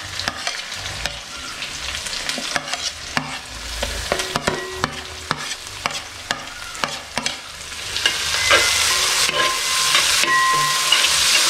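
Chopped onion sizzling in hot coconut oil, with a metal spatula scraping and clicking as it pushes the onion off a plate into the pan. About eight seconds in, the sizzle grows louder as the onion is stirred into the oil.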